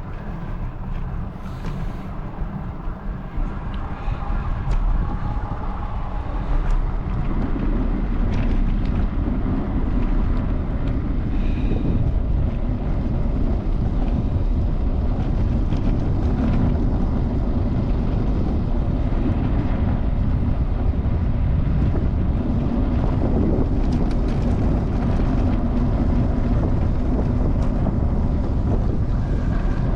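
Wind buffeting the microphone, with steady road noise from travelling at speed. It gets louder about seven seconds in, then stays steady.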